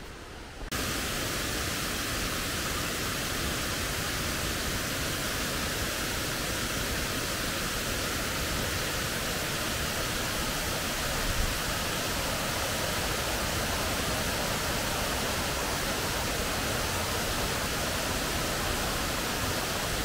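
Falling water from a waterfall and its cascading stream: a steady, even rushing that starts abruptly about a second in.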